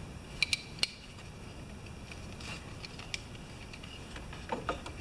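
Small parts of a scale fire truck's steering being handled and fitted: three sharp clicks in the first second, then a few fainter taps and clicks near the end.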